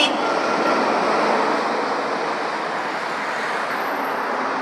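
Road traffic noise from vehicles on the road: a steady rush of tyres and engines that eases slightly over the first few seconds.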